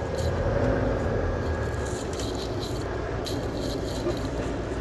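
Semi truck cab interior: steady low engine and road rumble with light rattles and small clicks.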